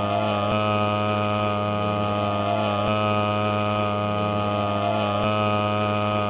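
A loud, steady droning hum made of many held tones, with a slight swell that repeats about every two and a half seconds.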